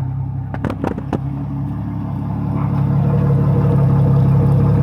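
Yamaha 200 four-stroke outboard motor running in neutral after its throttle and shift linkage were adjusted, with a few sharp clicks about a second in; from about two seconds in the engine speeds up and holds at a higher, louder pitch.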